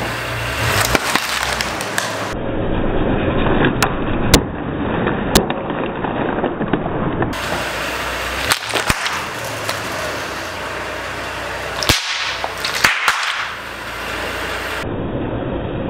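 Car tyre rolling slowly over plastic water bottles and then over water-bead stress balls on brick paving. Under a low rumble from the tyre there are sharp cracks as the bottles give way, then sudden pops and squelches as the stress balls burst.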